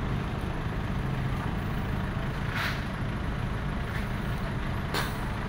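Steady low rumble of road traffic, with a short hissing burst about halfway through and a sharp click near the end.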